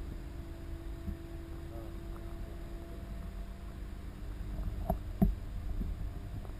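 Underwater ambience picked up by a submerged camera: a steady low rumble with a faint hum over it, and a couple of soft clicks about five seconds in.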